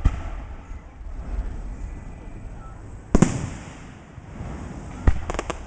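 Fireworks bursting: a bang at the start, the loudest bang about three seconds in with a rumbling tail, and another bang near the end followed by a quick string of crackling pops.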